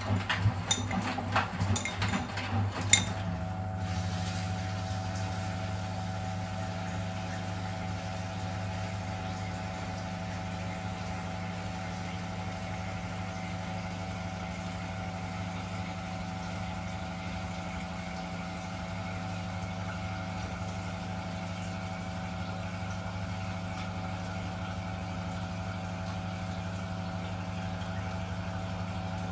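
Miele WS 5405 washing machine running mid-cycle: a few seconds of clattering knocks, the sharpest about three seconds in, then a steady even hum of the machine's motor and pump with water noise.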